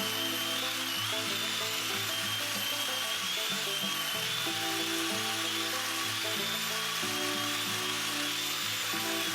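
Angle grinder running steadily against old rubber trim seals to clean them, its high whine wavering slightly in pitch as it bears on the rubber. Background music plays along with it.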